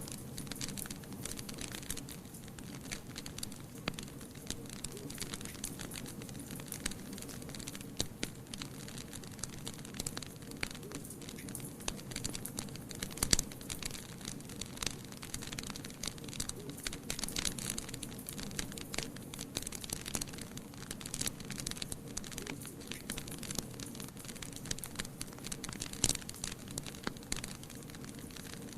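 Fire in a fireplace crackling and popping steadily over a low rush of flame, with a few sharper, louder pops, one about halfway through and another near the end.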